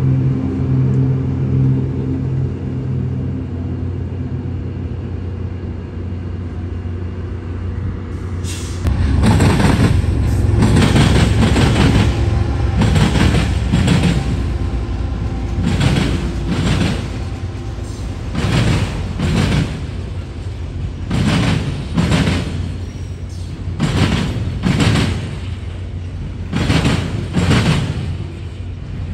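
A steady low engine hum, then about nine seconds in a BNSF freight train passing close by: the diesel locomotive's loud rumble, followed by the cars' wheels knocking over rail joints in repeated pairs of clacks.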